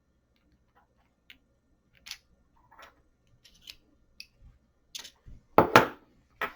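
Small clicks and taps of a pin-tumbler lock's metal parts being handled during disassembly, coming more often as they go on, with two louder knocks in quick succession near the end.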